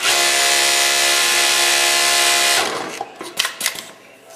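Kingtex industrial cylinder-bed sewing machine running steadily as it stitches, then winding down to a stop about two and a half seconds in, followed by a few sharp clicks.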